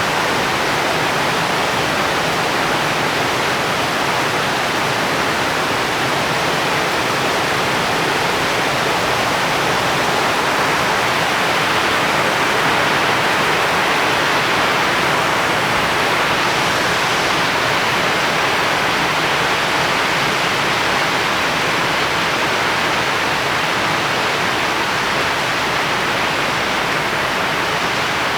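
Steady heavy rain falling, an even hiss with no separate drops or pauses.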